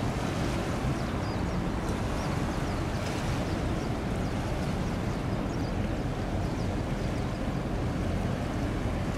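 Steady low rumble of a large container ship under way, mixed with water washing and wind on the microphone.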